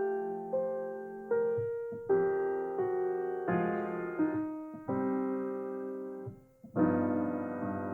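Piano playing a slow blues: chords struck about once a second and left to ring and fade, with a short break and a loud chord near the end.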